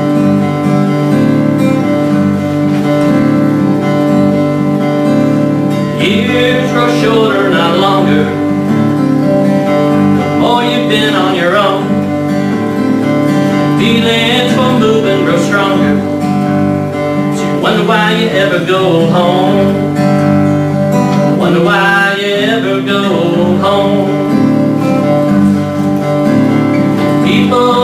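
Acoustic guitar strummed steadily, with a man singing phrases over it every few seconds from about six seconds in.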